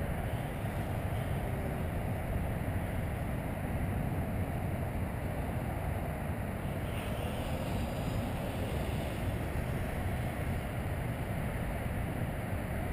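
Steady wind rumble on the microphone, with the faint whine of a small electric foam RC flying wing's motor and propeller high overhead.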